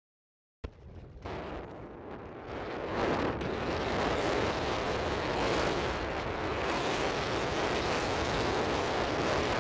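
Rushing noise of skating on sea ice: wind on the microphone mixed with the glide of skate blades over the ice. It starts abruptly just after half a second in, builds over the next couple of seconds, then holds steady.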